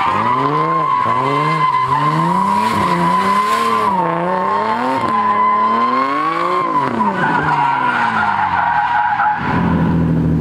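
Nissan 370Z's 3.7-litre V6 drifting: a steady tire squeal over the engine's revs, which rise and fall about once a second. Near the end the squeal stops and the engine settles to a steady drone.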